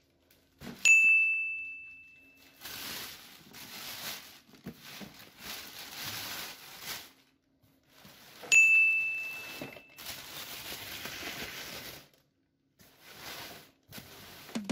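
Plastic bag crinkling and rustling while a cardboard box is pulled out of it and handled, in stretches. Over it, twice, a bright bell-like ding rings out and fades over about a second and a half, once about a second in and again about eight and a half seconds in; the dings are the loudest sounds.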